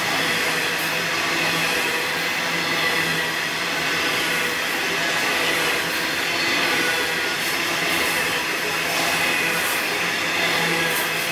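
Wagons of a long coal train rolling steadily past: a continuous rail rumble with faint high-pitched whining tones from the wheels.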